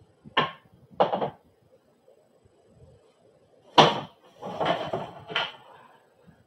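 Long stand pieces of a Snuzpod4 bassinet being handled and set down, knocking against each other and the floor: two knocks near the start, then a louder knock followed by about a second of clattering.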